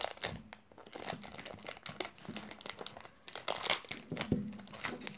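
Clear plastic wrap on a new speed cube crinkling and crackling as it is picked at and peeled off by hand, in a string of irregular crackles that is loudest about three and a half seconds in.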